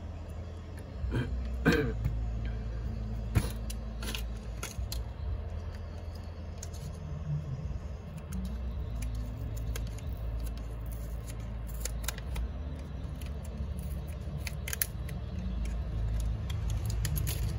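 Scattered small clicks and taps from handling laptop RAM modules in an opened MacBook Pro, a dozen or so spread irregularly, over a steady low background hum.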